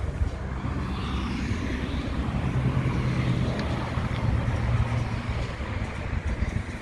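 A motor vehicle's engine running, a low steady hum that grows louder through the middle and eases off near the end.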